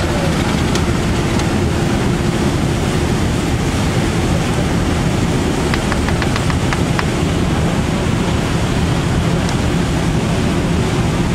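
Steady rumble of a motorboat's engine under way, mixed with rushing wind and water noise, with a few faint clicks about six seconds in.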